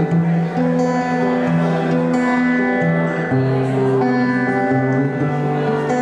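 Live band playing: sustained chords over a bass line that steps to a new note every second or so, at a steady loud level.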